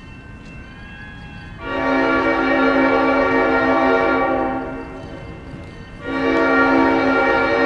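Train horn sounding two long blasts, the first about three seconds long, the second starting about six seconds in.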